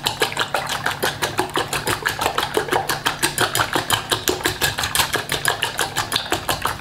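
Metal whisk beating eggs in a glass bowl: rapid, even clicking of wire against glass, about six strokes a second.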